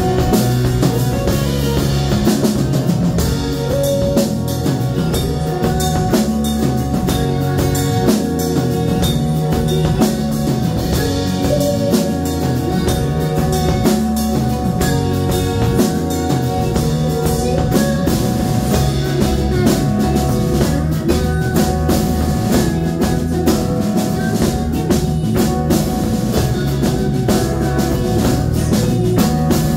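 Live band music: a stage keyboard and a drum kit playing together, the drums prominent with steady kick, snare and cymbal hits.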